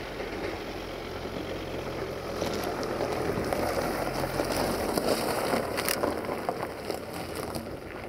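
LDE2100 diesel-electric freight locomotive and its train rolling away, the Sulzer diesel engine's low hum under a steady rumble of wheels on rail. From about two and a half seconds in, a scatter of sharp clicks and crackles sits over it.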